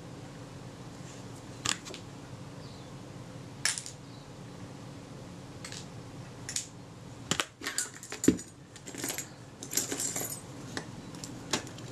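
Light metallic clicks and clinks from the small parts of a Kodak Retina IIIS camera body being handled and taken apart. A few single clicks come first, then they come more often in the second half.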